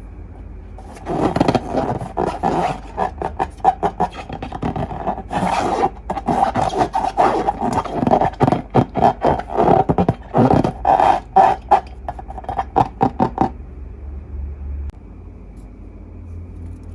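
Slime being worked and mixed by hand: irregular sticky scraping, squelching and crackling clicks in quick bursts that stop a few seconds before the end.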